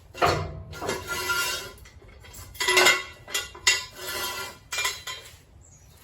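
Loose metal tools and parts clanking and scraping in a run of irregular clattering bursts, some with a brief metallic ring.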